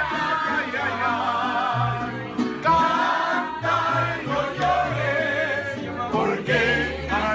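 Mariachi band playing live: a man singing over violin and guitars, with deep bass notes changing under the melody.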